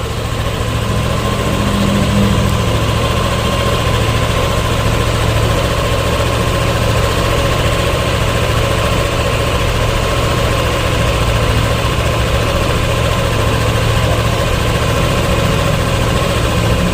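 Yamaha Aerox 155 scooter's single-cylinder engine idling steadily, heard close up at the CVT housing. The CVT sounds smooth, with no rattle or odd noise, a sign that the transmission's sliders and other parts are still in good condition.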